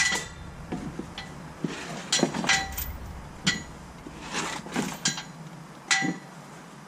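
Irregular sharp metallic clanks and knocks, about half a dozen, several ringing briefly: metal tools and parts handled while working in a Jeep Wrangler TJ's stripped rear tub.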